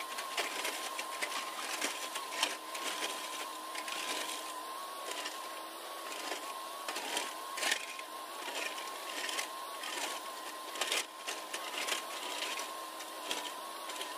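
JCB tracked excavator working a slope, its engine and hydraulics running with a steady high whine that dips briefly a few times, over scattered clicks and rattles of soil and stones as the bucket scrapes down the face.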